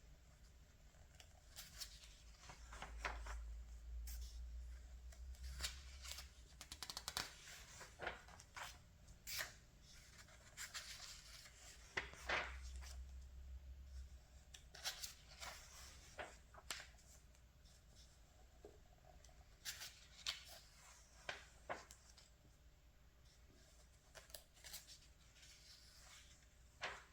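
Pages of a glossy magazine being handled and turned: faint paper rustling with scattered crisp crackles, and a low rumble twice from handling.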